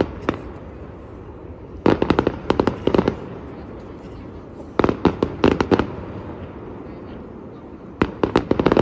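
Fireworks exploding in rapid volleys: three clusters of sharp bangs, each about a second long, roughly every three seconds, with a low rumble between them.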